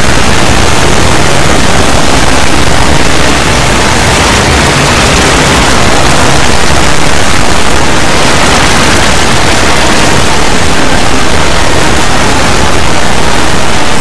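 Loud, heavily distorted wall of static-like noise, clipping near full volume without letup: many audio tracks layered and processed into noise in a video-effects edit.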